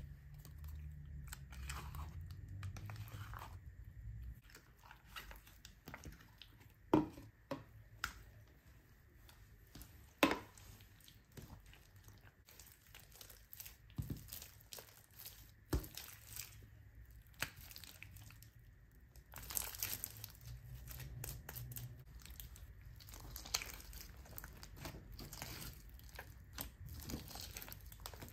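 Borax-activated clear glue slime being stirred with a wooden stick in a plastic tub, then pressed, kneaded and stretched by hand on a tabletop. Sticky, wet crackles with scattered sharp clicks and pops as the slime pulls apart and sticks to the hand and table.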